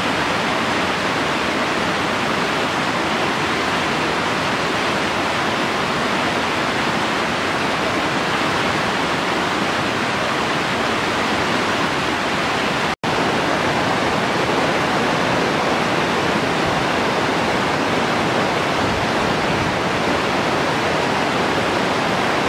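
Mountain stream rushing over rocks: a loud, steady water roar, broken for an instant about halfway through.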